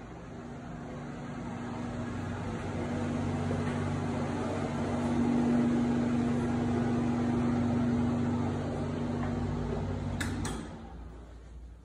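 A ventilation fan humming steadily with a rush of air, louder through the middle, then two clicks near the end after which the hum falls away.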